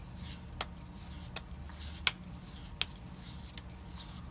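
Magic: The Gathering trading cards being handled and flipped through by hand: soft swishes of cards sliding over one another, with about five sharp card snaps spaced under a second apart, the loudest about two seconds in, over a low steady hum.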